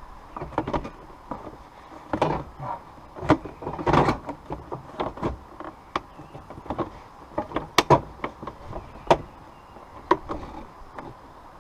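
Irregular knocks, clicks and rustling of hands handling and fitting plastic interior trim panels in a car, with a few louder sharp knocks.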